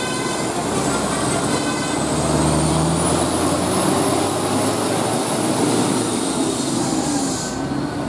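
A Mercedes-Benz diesel tour bus driving past close by and pulling away, a loud steady rush of engine and road noise. A deeper engine drone swells about two seconds in and fades after a second or so.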